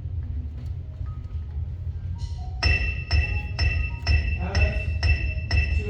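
Front-ensemble mallet percussion starting to play. A few scattered notes come first, then about two-thirds of the way through a bright, ringing note is struck evenly about twice a second, with lower notes moving underneath. A steady low rumble runs beneath it all.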